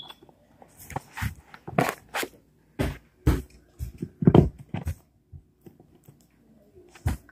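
Paper sketchbook being handled close to the microphone: irregular crackles and rustles of the sheets, with a few dull knocks, coming in quick clusters and then mostly stopping, with one last crackle near the end.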